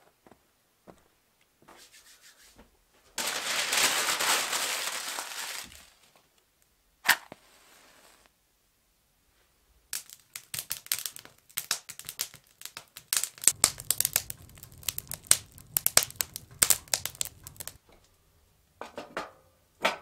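A fire being lit in a wood stove: a few seconds of tearing and crumpling, a single sharp snap, then kindling crackling and popping rapidly as it catches, with a low rumble underneath in the later part.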